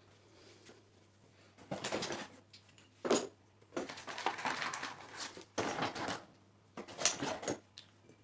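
Handling noise from setting up a small paludarium: a series of short, irregular rustling and scraping bursts with one sharper knock about three seconds in, over a faint steady low hum.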